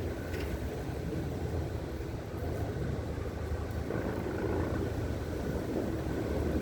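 Ryobi 40-volt HP brushless chainsaw running while limbing a cut branch, a steady motor whine over a low chain rumble that swells and eases as the cuts go in.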